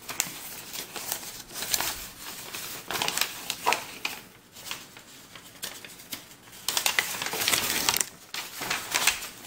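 Old folded paper map being unfolded and handled: dry paper crinkling and rustling in fits and starts, loudest about seven to eight seconds in.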